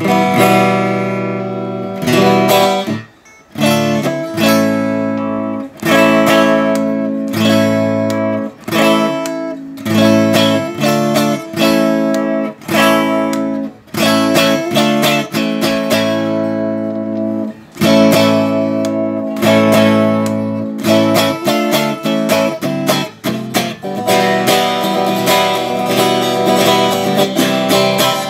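Stratocaster-style electric guitar strummed in chords, a run of strums with short breaks and a brief gap about three seconds in. It is played as a test of its newly installed pickup wiring.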